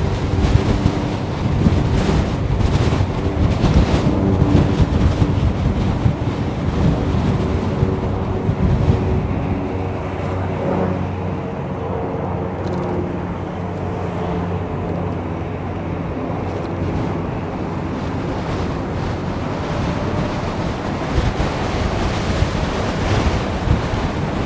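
Wind buffeting the microphone with a steady low rumble while riding an electric bike along at speed. A few faint steady tones sit under the noise for roughly the first half.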